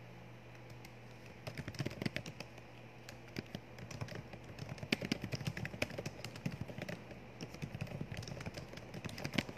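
Typing on a keyboard: a run of quick, irregular key clicks that starts about a second and a half in and goes on in uneven bursts.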